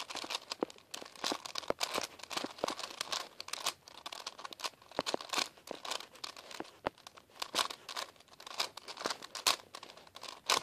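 A 4x4x4 Rubik's cube being turned quickly by hand: a dense, irregular run of plastic clicks and clacks as the layers snap round.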